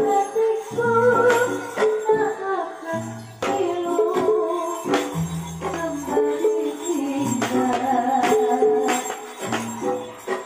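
Live Javanese gamelan-style music with a singer's wavering melody over repeated drum strokes and sharp struck percussion with jingling, played through a sound system for a barongan dance.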